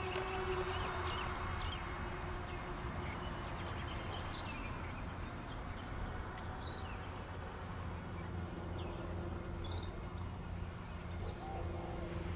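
Faint steady whine of the electric motors of a four-engine model B-17 in flight, with a second, lower tone joining about eight seconds in. Under it runs a low rumble, and birds chirp briefly here and there.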